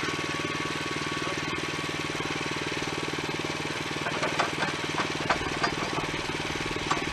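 Engine running steadily with a fast, even beat, with a handful of sharp clanks and knocks between about four and seven seconds in.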